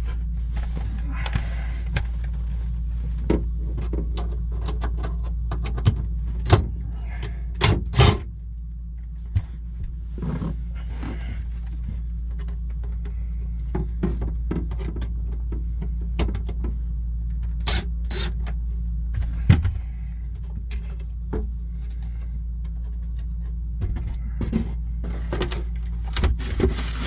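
Handling and prying off a wall panel inside a camper compartment: scattered knocks, clicks, rattles and scrapes, several louder knocks about six to eight seconds in and one near twenty seconds, over a steady low hum.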